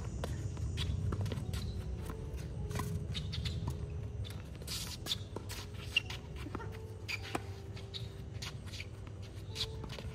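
Footsteps scuffing and tapping on a hard tennis court, with scattered short ticks, a few sharper knocks and a low steady rumble underneath.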